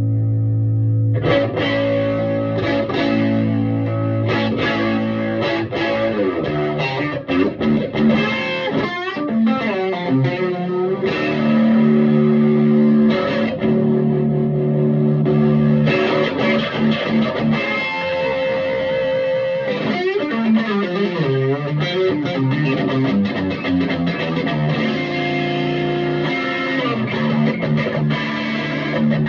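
Electric guitar played through a Vintage Sound Amp (VSA) valve guitar amplifier. A chord rings out for about a second, then strummed chords and picked single-note lines follow.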